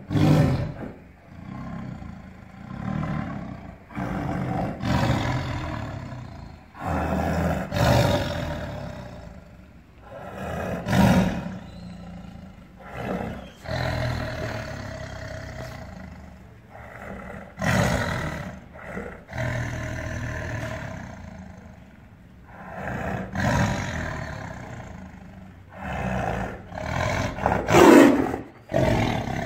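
Caged tiger roaring and snarling in anger, in repeated bursts a second or two apart, with the loudest burst near the end.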